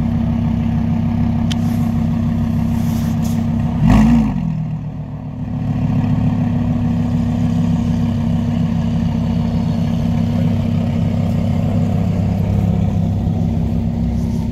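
An exotic car's engine idling steadily, with one quick throttle blip about four seconds in that rises and drops back to idle.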